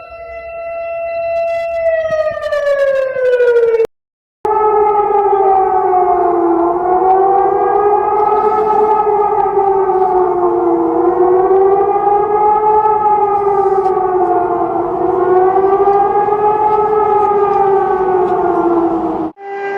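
Outdoor civil defense warning sirens. A steady siren tone winds down in pitch and stops, then after a brief break about four seconds in, a siren wails, its pitch rising and falling slowly over and over, until it cuts off abruptly just before the end.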